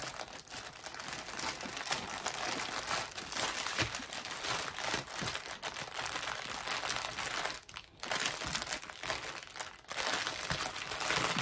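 Clear plastic bag of a diamond-painting kit crinkling steadily as hands handle and open it, with brief pauses about eight and ten seconds in.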